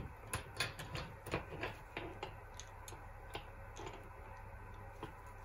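Needle-nose pliers clicking and tapping against twisted copper wire on a wooden board: a string of small, irregular clicks for about the first four seconds, with a faint low hum underneath.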